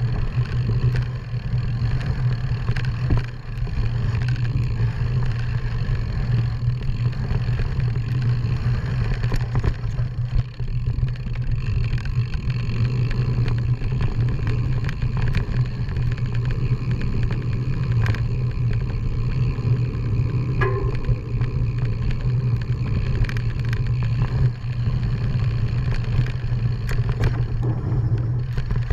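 An off-road vehicle riding a bumpy forest dirt trail: a steady engine drone held at an even pitch, with frequent rattles and knocks from the rough ground.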